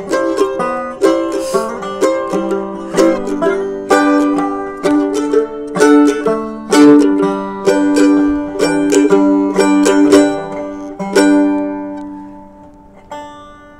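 Banjo and mandolin playing a tune together in quick plucked notes, without singing. About eleven seconds in the tune stops on a last chord that rings out and fades.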